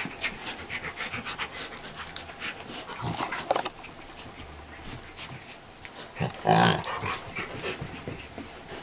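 A beagle puppy and a Rottweiler play-wrestling: rapid scuffling and panting, with one short loud cry from a dog about six and a half seconds in.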